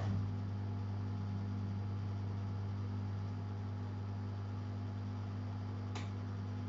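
Zanussi Jetsystem Turbodry ZWD 1000 washer-dryer switching to a steady low electrical hum, as a mains-powered part such as its pump or a valve comes on, with one sharp click about six seconds in.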